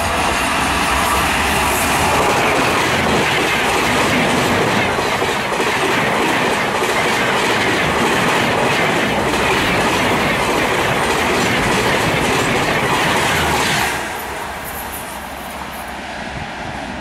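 Shatabdi Express hauled by a WAP-5 electric locomotive running through at about 150 km/h: a loud, steady rush of wheel-on-rail and air noise as the locomotive and coaches pass close by. About fourteen seconds in the last coach goes by and the noise drops sharply to a lower rumble as the train runs away down the line.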